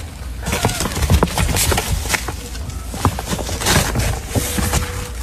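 Irregular knocks and clicks with rustling, and a brief faint steady tone near the end.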